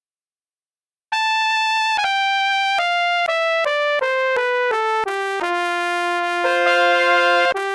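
Sampled trumpet from a brass SoundFont playing a melody. After about a second of silence it enters on a high note and steps down through a run of short notes, then holds a low note while a second note joins above it near the end.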